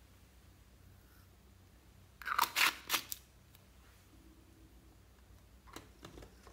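Blue glitter shaken and tapped out of a small plastic jar onto clear slime. A quick run of crisp, rustling shakes comes about two seconds in, and two fainter taps come near the end.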